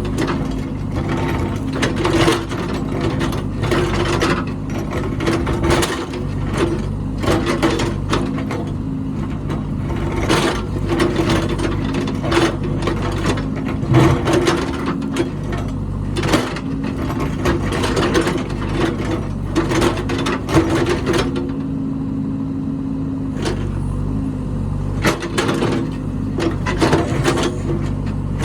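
Heavy earthmoving machine's engine running steadily under frequent irregular metallic clanks and knocks.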